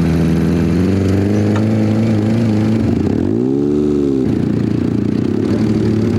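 Off-road buggy engine running at a steady idle, blipped once about three seconds in with a quick rev that rises and falls back to idle.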